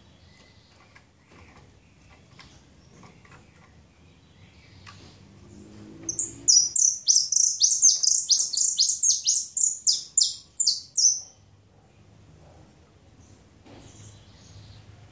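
Caged saffron finch singing a fast series of sharp, high, downward-sweeping notes, about four a second for some five seconds, starting about six seconds in. Faint clicks come before and after it.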